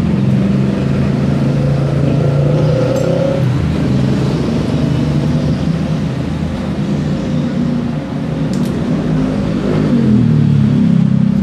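A motor vehicle engine running steadily with a low hum, a little louder near the end. The engine on the bench is taken apart, so this is another engine running nearby.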